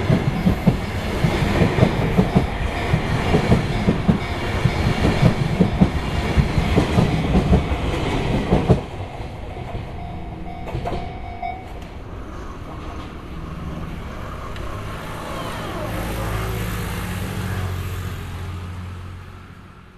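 Sotetsu Line electric train passing over a level crossing, its wheels clattering over the rail joints in a rapid rhythm. About nine seconds in the clatter stops abruptly as the last car clears, leaving a lower rumble that swells briefly and then fades away.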